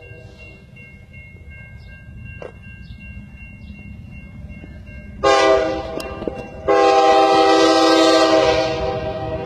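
Norfolk Southern diesel locomotive's air horn sounding a multi-note chord. After a fading earlier note, a short loud blast comes about five seconds in, then a longer blast a second later that tapers off near the end, over a low rumble.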